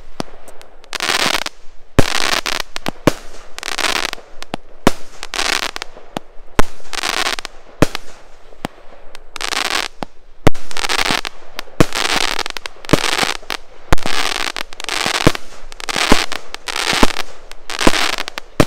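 Celtic Fireworks Twilight Zone, a 25-shot 25 mm firework cake, firing in a steady run: sharp bangs about once a second, each followed by a rush of crackling noise lasting under a second.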